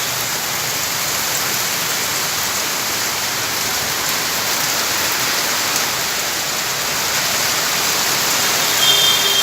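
Steady heavy rain hiss. Near the end a steady high-pitched tone joins it.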